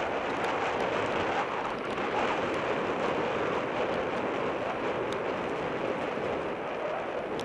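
Mountain bike ridden fast along a dirt singletrack: a steady rush of wind on the onboard camera's microphone mixed with tyre and trail rumble, with a few small rattles and knocks from the bike, one about five seconds in.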